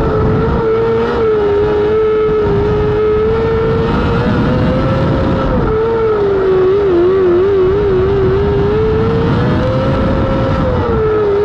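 Non-wing micro sprint car engine running hard at high revs, one loud note that rises and dips slightly with the throttle. It wavers quickly for a couple of seconds past the middle and again near the end, over a low rumble of noise.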